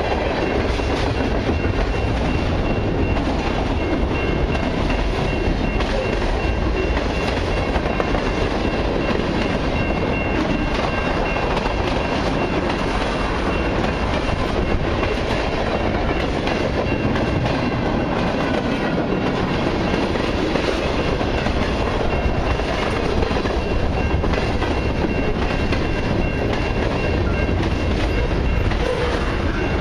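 Long CN mixed freight and autorack train's cars rolling past close by: a steady, loud rumble and clatter of steel wheels on the rails.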